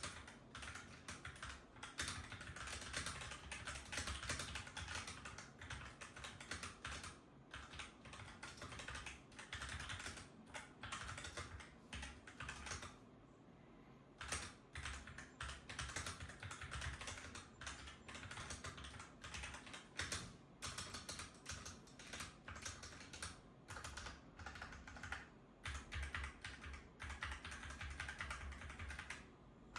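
Fast typing on an Akko 3068B Plus mechanical keyboard with linear Gateron Pink (Red-type) switches: a dense, continuous clatter of keystrokes, broken by a few short pauses, including one about halfway through.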